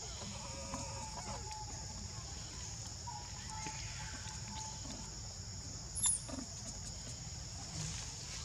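Steady high buzzing of insects, with faint drawn-out animal calls now and then. A single sharp click, the loudest sound, comes about six seconds in.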